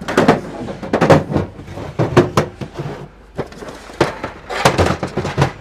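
Orange plastic interlocking tool cases being lifted and stacked onto one another, a string of hard plastic clunks and clicks as they knock together and lock into place.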